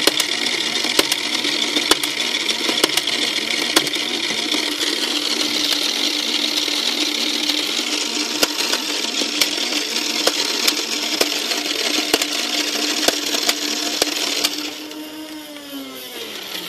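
A toy dart blaster's small electric motor running steadily with a rapid clicking, then winding down with a falling pitch near the end.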